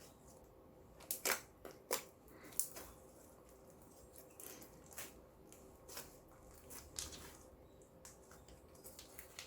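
Clear slime being worked by hand, making sharp sticky clicks and pops at irregular intervals. The loudest cluster comes a second or two in, with softer pops after it.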